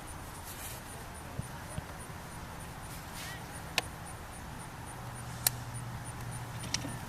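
A few sharp, short knocks, the loudest about four and five and a half seconds in, over a low steady hum.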